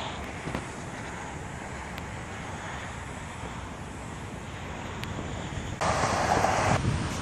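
Wind buffeting the camera microphone, a steady rumbling hiss, with a louder rush lasting about a second near the end.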